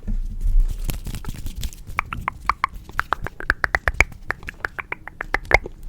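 Rapid ASMR tapping on a hard object, about five or six taps a second, many of them with a short ringing pitch.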